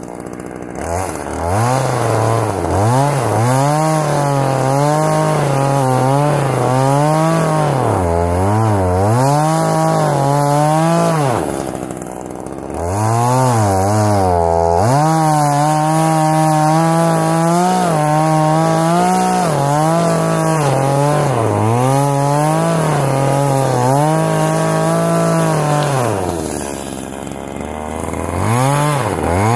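Ryobi 14-inch chainsaw running fast and cutting into a bush stump at ground level, its pitch wavering up and down with the load. Twice, about twelve seconds in and again near the end, it drops back to a lower, quieter speed before revving up again.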